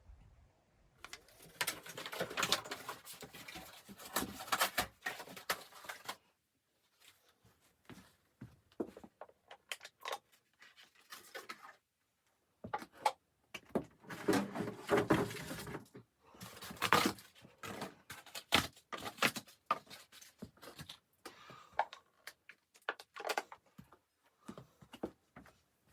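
Irregular rustling, scraping and knocking of things being handled, coming in bursts with short pauses between them.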